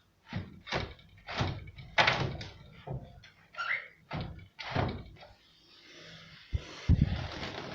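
A run of about ten irregular knocks and bangs from a metal bird cage being handled, the loudest about two seconds in and a pair near the end, with a brief squeak a little before the middle.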